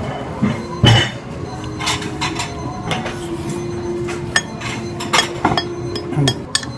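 White ceramic soup spoon clinking and scraping against a plate as fried rice is scooped: a string of short, sharp clinks, with a heavier knock about a second in, over a steady background hum.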